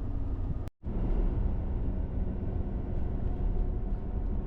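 Steady road and engine noise of a pickup truck driving, heard inside the cab. It is broken by a brief cut to silence under a second in.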